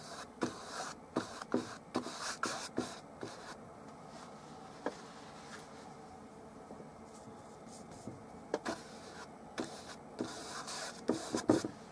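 Size 10 flat bristle brush stroking oil paint onto canvas: a run of quick scrubbing strokes for the first few seconds, a quieter pause, then another run of strokes near the end.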